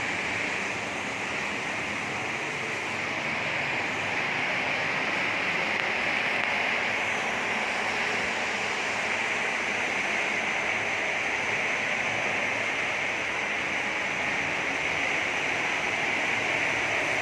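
Heavy rain falling, a steady even rushing hiss.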